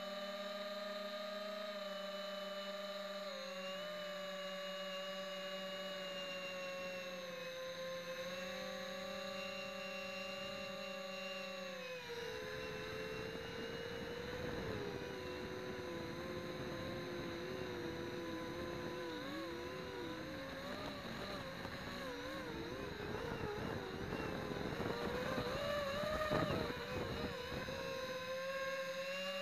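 Whine of a quadcopter's motors and propellers, heard close up from a camera mounted on the quad: steady for about twelve seconds, then wavering up and down in pitch with a rough rushing noise as the throttle changes, settling back to a steady whine near the end.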